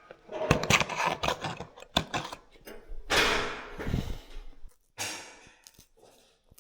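Irregular knocks and clatter of hand work, followed by a longer swishing scrape about three seconds in and a shorter one near the end.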